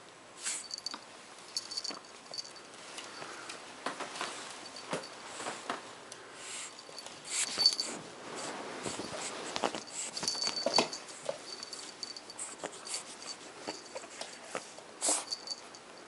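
Pug puppy moving about in a blanket close by, with irregular rustling, scuffing and soft clicks, and now and then a short high jingle from its collar.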